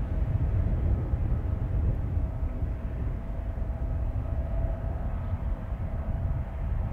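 Steady airport apron noise: a low rumble with a faint steady whine.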